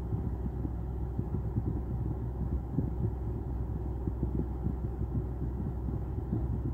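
Low rumble of a car idling, heard from inside its cabin, with an uneven throb.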